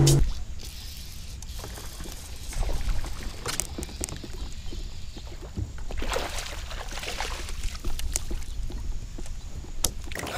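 Water splashing and sloshing beside a kayak as a hooked bass thrashes at the surface and is scooped into a landing net. A few sharp knocks and rattles of gear being handled are mixed in.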